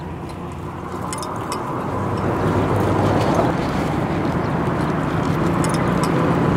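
A steady engine hum, slowly growing louder, with a few faint clicks.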